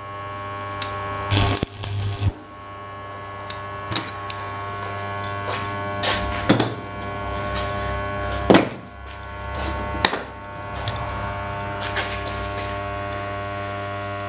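Stick (electrode) welder humming steadily, with several brief bursts of arc noise and clicks as the electrode is struck to tack-weld a baffle cone inside a moped exhaust.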